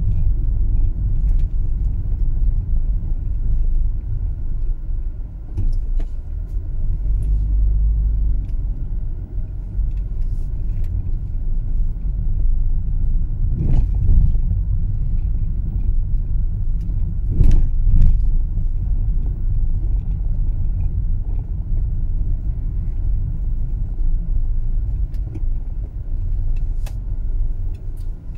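Car driving slowly, a steady low rumble of engine and road noise, with a few short knocks about halfway through.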